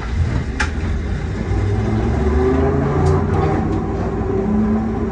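Drone of a 1928 Kawasaki-built wooden tram's nose-suspended traction motors and gears, heard from inside the cab over a low rumble of the wheels on the rails, the pitch rising slightly near the end. A few sharp clicks sound about half a second in and again around three seconds in.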